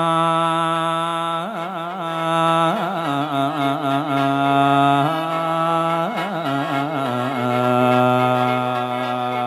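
Khaen, the Lao-Isan bamboo free-reed mouth organ, playing solo: several notes held together over a steady drone, broken by short wavering melodic phrases.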